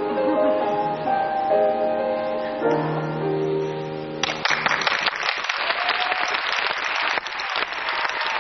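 Music ends on long held notes, and about four seconds in an audience breaks into applause.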